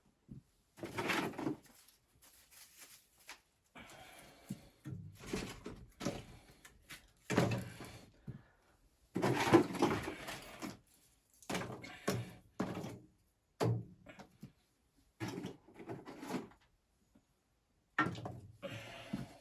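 Irregular thunks and knocks mixed with rustling and scraping, like gear being handled and set down in a small enclosed space, in about a dozen separate bursts.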